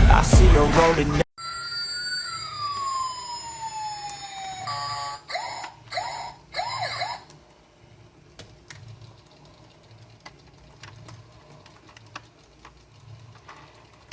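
Background music cuts off about a second in, followed by electronic siren-like tones gliding downward and then three short warbling chirps. The rest is quiet, with faint scattered light clicks.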